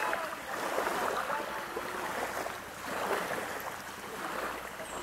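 Sea water lapping and splashing in small waves, rising and falling in soft swells.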